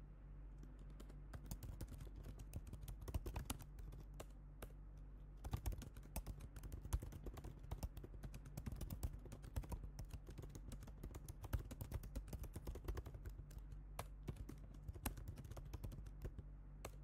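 Typing on a computer keyboard: quick, irregular key clicks, with a short pause about four seconds in, over a faint steady low hum.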